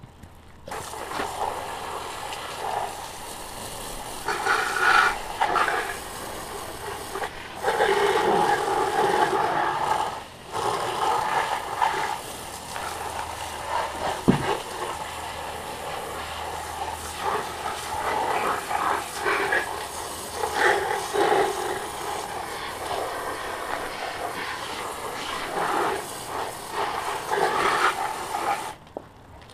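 Water spraying from a garden hose spray wand onto a muddy RC truck and the grass. The spray is turned on about a second in and shut off near the end, and its hiss and splatter rise and fall as the stream moves over the truck. There is one sharp knock about halfway through.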